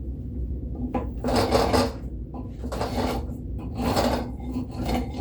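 A hand shaping tool working a white oak axe handle in about four scraping strokes, each roughly half a second long and about a second apart, shaving wood off to thin the handle.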